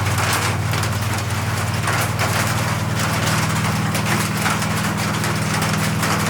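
Steady rain falling, with a dense hiss and scattered drip ticks, over a constant low mechanical hum.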